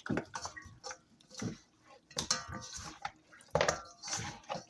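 Irregular wet squelching as raw pork pieces are worked by hand in a soupy green-seasoning marinade.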